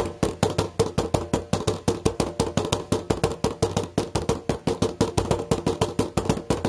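Nunchaku drumming: wooden nunchaku beating green plastic bins used as drums in a fast, unbroken stream of knocks, about six to eight strikes a second, each with a short hollow ring.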